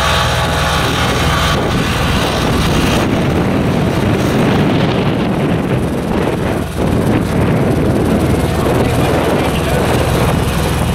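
Ride-on tandem asphalt roller's engine running steadily as the roller works back and forth compacting fresh asphalt.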